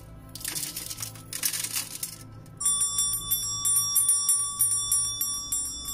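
Small quartz crystals rattling and clinking as they are handled and set down. About two and a half seconds in, a small brass hand bell starts ringing, shaken so it is struck again and again, its several high tones ringing on.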